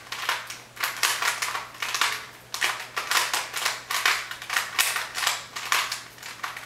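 Plastic Rubik's Cube layers being turned quickly by hand through a sequence of moves: a run of clicks and clacks in clusters, several turns a second, over a faint steady hum.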